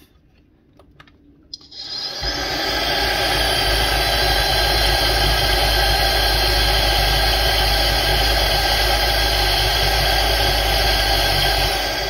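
Belife BVC11 cordless stick vacuum's brushless motor starts after a few faint clicks. It spins up over about a second to a loud, steady whine with rushing air, then is switched off near the end and begins to wind down.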